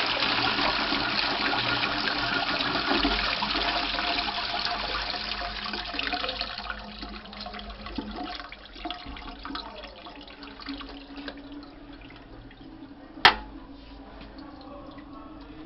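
Twyfords Classic toilet flushing: loud rushing water into the bowl for about six seconds, then fading to quieter running and trickling as the flush ends. Near the end there is a single sharp clack as the seat is lowered onto the bowl.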